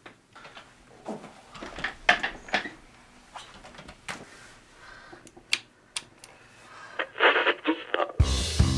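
Scattered light clicks, knocks and rustles of someone moving about an office, with a few sharper clicks. Music starts abruptly near the end.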